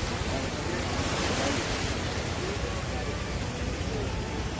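Bay of Bengal surf breaking on the beach: a steady, unbroken wash of waves.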